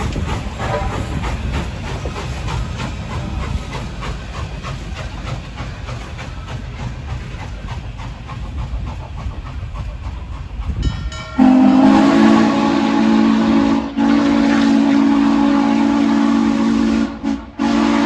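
Norfolk & Western J-class 4-8-4 steam locomotive 611 running away down the track with a low rumble. About eleven seconds in its chime whistle blows, several notes sounding together, held in three long blasts with two short breaks.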